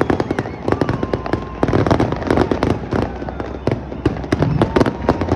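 New Year fireworks display going off: a continuous, dense run of sharp bangs and crackles, several a second, overlapping with no pause.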